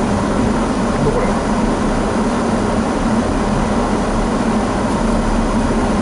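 Steady in-cabin noise of a Daihatsu Rocky 4WD driving on a snow-covered road: tyres on snow and the engine running, heard inside the car as an even rumble with a low drone.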